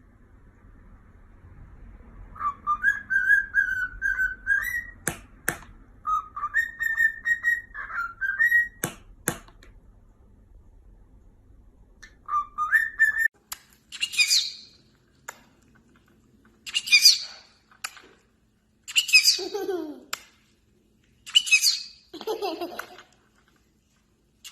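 Pet parrot whistling a warbling tune, broken by a few sharp clicks. Later come repeated calls, each sweeping down from high to low, about one every two and a half seconds.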